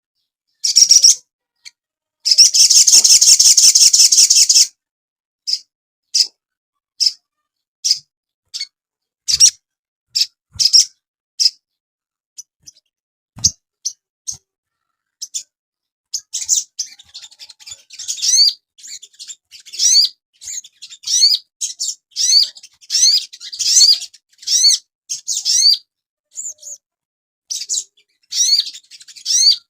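Sogon (crimson sunbird) singing: a dense, rapid high trill a couple of seconds in, then sharp single chips spaced under a second apart, breaking into a continuous run of quick, high twittering phrases from about halfway through.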